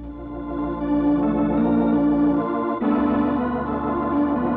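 Organ music bridge marking a scene change in a radio drama: held organ chords that swell in over the first second and move to a new chord about three seconds in.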